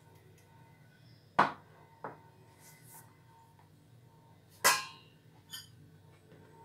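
Kitchenware knocking: two sharp clinks, one about a second and a half in and another just under five seconds in, each followed by a lighter tap, the later ones ringing briefly like a utensil or dish striking a bowl.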